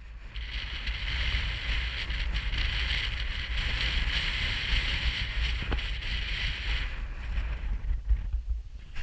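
Wind buffeting a GoPro's microphone: a low, gusting rumble with a hiss over it that eases about seven seconds in.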